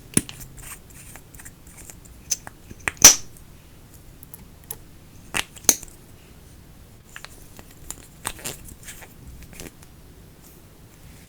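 Slime being handled, giving irregular sharp clicks and pops; the loudest comes about three seconds in.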